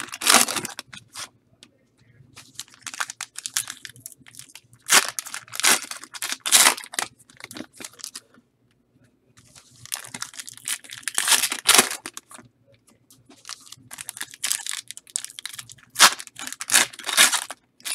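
Trading-card pack wrappers being torn open and crinkled by hand, in several bursts a second or two long with short pauses between.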